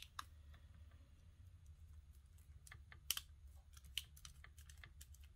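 Faint, scattered clicks and light taps of a plastic power plug's parts and a small screwdriver being handled as the plug is assembled, with two sharper clicks about three and four seconds in.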